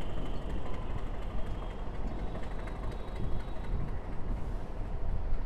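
Passenger train coaches rolling past on the adjacent track: a steady rumble of wheels on rail, with many small clicks and knocks running through it.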